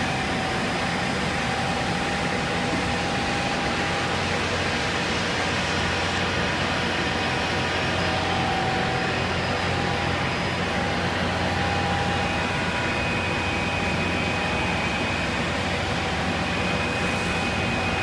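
Holztek TECTRA 328 CNC panel saw and its dust extraction running with a steady machine noise, a faint steady whine and a low hum.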